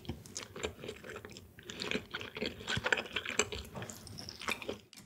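Close-miked chewing of a piece of nigiri sushi topped with torched fish fin: soft, wet mouth sounds with many small, irregular clicks.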